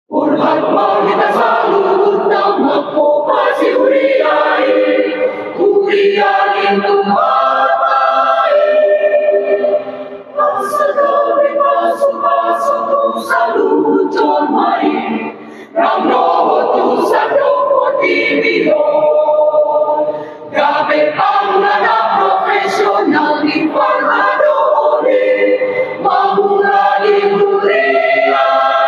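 Mixed choir of men's and women's voices singing a hymn in parts, beginning abruptly and breaking briefly between phrases.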